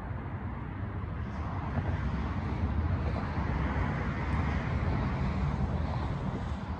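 A vehicle going by on the road: an even rushing rumble that swells toward the middle and eases off near the end.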